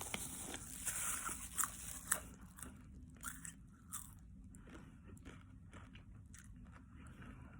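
A person chewing crunchy popcorn close to the microphone. The crunching is dense for the first couple of seconds, then thins to quieter, scattered crunches.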